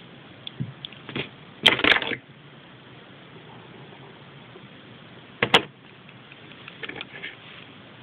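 Close handling noises: fingers turning small plastic Lego minifigure pieces near the microphone, with a few brief scrapes and clicks over a steady hiss. The loudest is a crackling scrape just under two seconds in, with another sharp one about five and a half seconds in.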